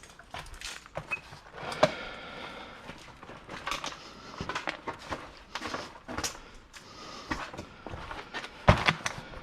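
Scrap and plastic totes being handled and shifted: an irregular string of knocks, clunks and rustles, with sharper thumps about two seconds in and again near the end.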